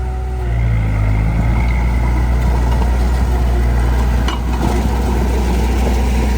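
Heavy-equipment diesel engine running steadily with a deep, even note that lifts slightly about half a second in. There is one short click about four seconds in.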